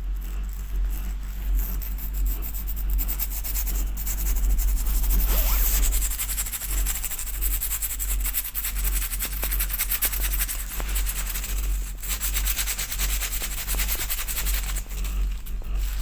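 Snow crunching and scraping: a continuous run of dense, gritty crackles that swells and eases, heaviest about five seconds in and again about twelve seconds in, over a steady low rumble.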